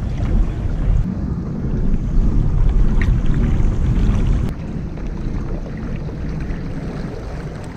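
Wind buffeting the microphone, a heavy low rumble that eases noticeably about four and a half seconds in.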